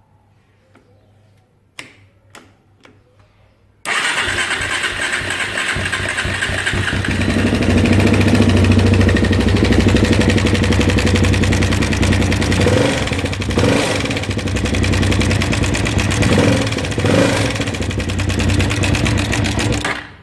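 2005 Suzuki LTZ 400 quad's single-cylinder four-stroke engine: a couple of clicks, then it starts abruptly about four seconds in and runs at idle with a few brief rises in revs, and is shut off near the end.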